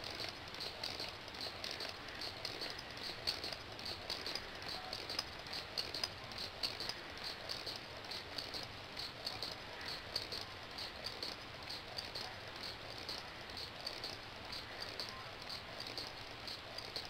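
Single-cylinder pneumatic Lego engine running off compressed air, its valve and cylinder puffing out air in short, even pulses a few times a second as the flywheel carries it round.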